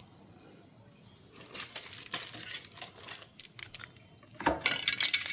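Handling noise: rustling and light clattering that starts about a second and a half in and gets louder in a burst of rattling near the end.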